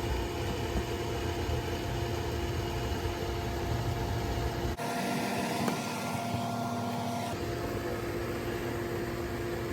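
Steady mechanical hum of a Hayward HD400 gas pool heater running through its start-up ahead of ignition, with a low rumble and a couple of steady tones. About halfway through, the low rumble drops away for a couple of seconds and then returns.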